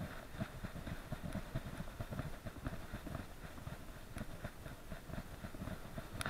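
A dog's trotting gait heard through an SJ4000 action camera strapped to its chest harness: steady rhythmic thumping, about four to five a second, as its paws strike the ground and the camera jostles against its chest. A sharp click near the end.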